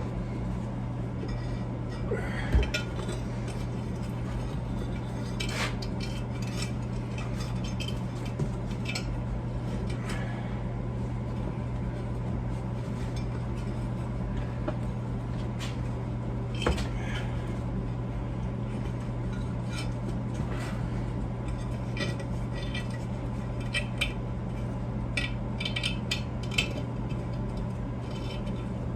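Scattered metal clinks and taps of hand tools being picked up and set down, a few sharper knocks among them, over a steady low hum.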